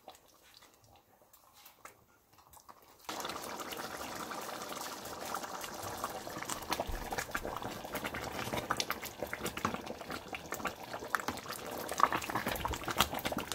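Near silence for about three seconds, then, starting suddenly, thick doro minchet stew bubbling and popping at a boil in a large stainless steel pot as a wooden spoon stirs through it.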